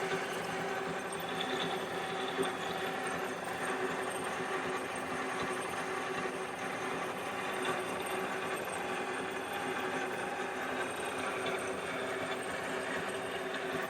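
Nihon Kikai NDH-1200 gear hobbing machine running, a steady mechanical whir and hum from its drive and gear train.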